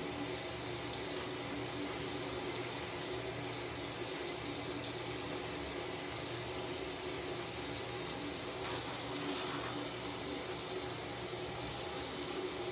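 Bathroom sink tap running, a steady rush of water.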